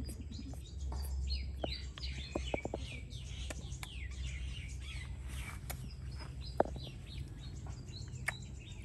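Small birds chirping repeatedly in quick, short falling notes over a low steady rumble, with a few sharp clicks, one of them loud about two-thirds of the way through.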